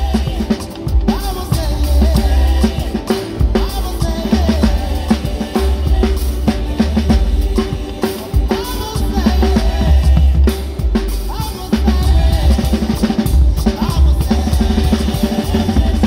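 Acoustic drum kit played with sticks: a steady groove on snare, bass drum, toms and cymbals, over a song with a bass line.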